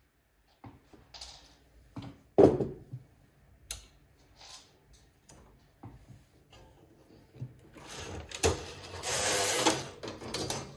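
Silver Reed SK840 double-bed knitting machine being worked: scattered clicks and knocks of the carriage and parts, then the carriage run across the needle beds for about two seconds near the end, knitting a row of rib.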